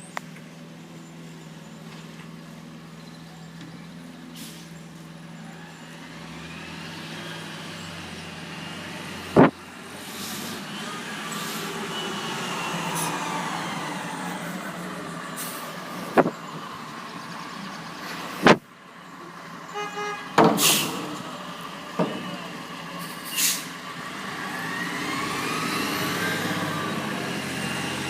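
Garbage truck engine running and revving, with short air-brake hisses and three loud sharp bangs. Near the middle there is a brief horn honk.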